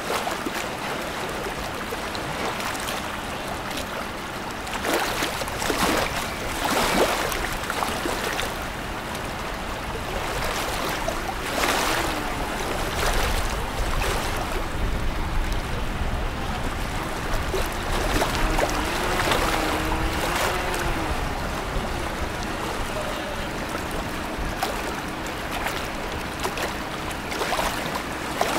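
Harbour ambience: water and wind noise with the low engine rumble of a harbour tugboat working alongside a container ship, strongest in the middle. A faint wavering tone comes and goes.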